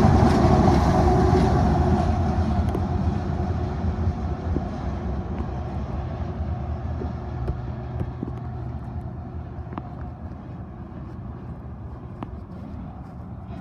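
Freight train rolling past, its cars rumbling on the rails and the sound fading steadily as the train draws away, with a few sharp clicks in the second half.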